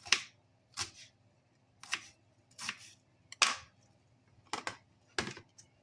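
A knife slicing through an onion and striking the cutting board, about seven separate cuts at an unhurried, uneven pace of roughly one a second.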